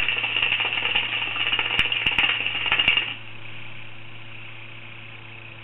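Hookah water base bubbling and gurgling in a dense, clicky rattle during a long draw on the hose, stopping abruptly about three seconds in; a quieter breath out of the smoke follows.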